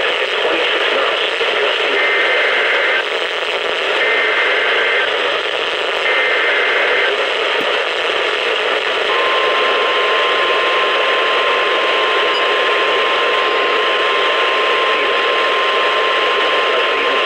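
NOAA Weather Radio broadcast heard through heavy static hiss. Three one-second bursts of the SAME digital alert header, a warbling data tone, come about a second apart. About nine seconds in, the steady 1050 Hz warning alarm tone starts and holds for about nine seconds, signalling that a warning is about to be read.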